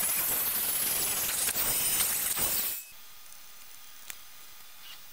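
Hand-held rotary tool with a cut-off disc grinding through a prototyping board, a harsh steady noise that stops abruptly about three seconds in. A few faint clicks follow.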